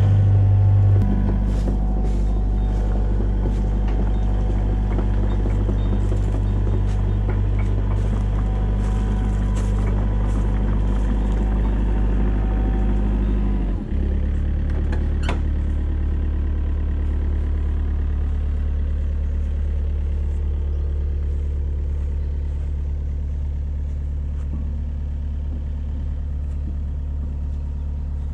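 Mini excavator's diesel engine running steadily, with scattered light ticks in the first half. Its note shifts about a second in and changes abruptly about halfway through.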